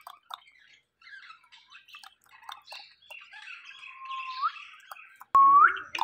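Indian ringneck parakeets making soft chattering and scattered chirps, with a rising whistled note about four seconds in and a sudden, much louder rising call near the end.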